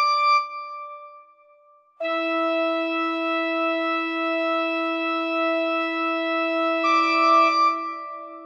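Organ holding sustained chords. A held chord dies away in the first half-second, there is a short pause, and from about two seconds in a long chord is held steady, with higher notes joining it near the end.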